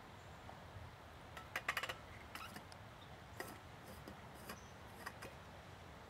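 Faint clicks and taps from a metal thermos being handled: a quick cluster of sharp clicks about a second and a half in, then a few single clicks spread out after it.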